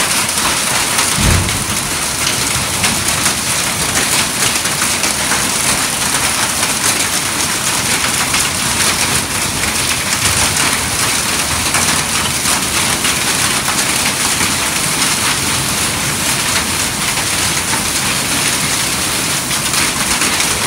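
Heavy rain pouring down steadily, with a brief low thump about a second in.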